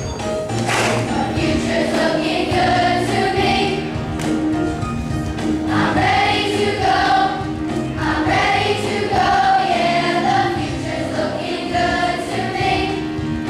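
A children's choir singing a song together over an instrumental accompaniment.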